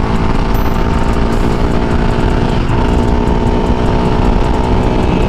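Yamaha Raptor 700 ATV's single-cylinder four-stroke engine pulling at full throttle as the quad accelerates past 55 mph toward 70, with a steady engine note over heavy wind rush on the handlebar-mounted microphone.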